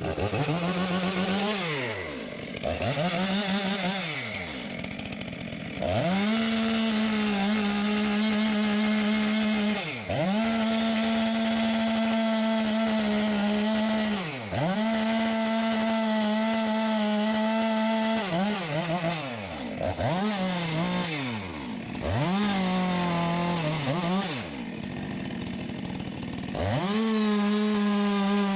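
Two-stroke chainsaw running at full throttle in long steady pulls, cutting into the trunk of a dead tree. Several times the revs drop away and climb back as the throttle is let off and squeezed again.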